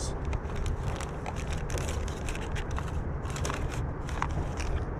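Plastic packaging of a soft-bait pack crinkling and crackling as it is handled and opened, many short irregular clicks, over a steady low rumble.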